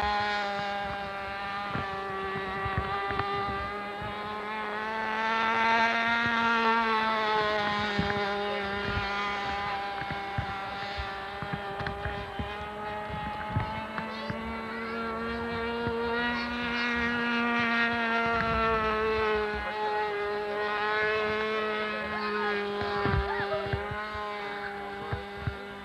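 Rossi .60 two-stroke glow engine of a radio-controlled F-18 pusher-prop model running at full throttle in flight, a steady high-pitched buzz. It rises and falls in pitch and loudness twice as the plane makes passes, about six seconds in and again around sixteen seconds.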